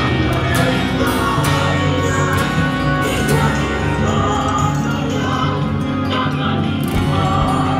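Music with a singing voice, playing steadily.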